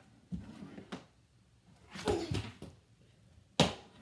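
Mini hockey stick knocking against a small ball and the hardwood floor: a few light knocks, a short scuffle about two seconds in, then one loud sharp crack near the end.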